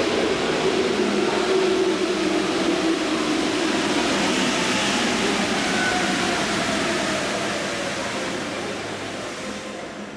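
New rubber-tyred MP14 metro train running into an underground station and braking to a stop. A motor whine falls in pitch as it slows, under a steady rush of running noise that fades over the last few seconds.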